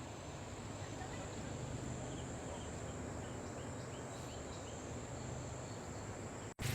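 Steady high-pitched insect chorus, with a few faint short chirps midway, over a rough background noise; the sound drops out for an instant near the end.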